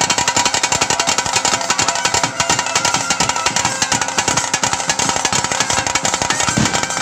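Ritual drums beaten fast and densely for a bhuta kola dance, a steady rapid stream of strokes without a break.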